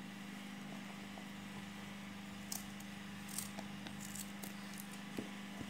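Knife cutting through firm unripe mango: several short, crisp cuts in the second half, over a steady low hum.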